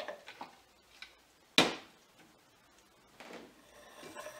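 Ice cubes, a glass ice bowl and a stainless steel cocktail shaker being handled on a stone countertop: a few light clinks, one sharp clack with a short ring about a second and a half in, then softer knocks and shuffling near the end.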